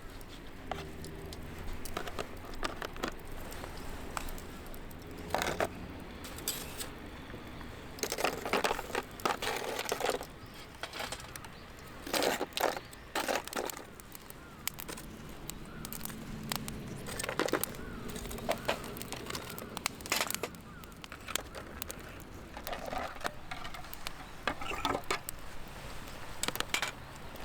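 Wood fire crackling, with irregular sharp pops and snaps and a few longer noisy bursts.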